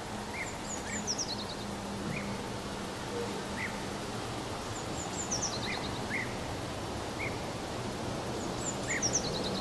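Outdoor birdsong over steady background noise: a bird repeats a short, high song that falls in pitch three times, with scattered single chirps in between.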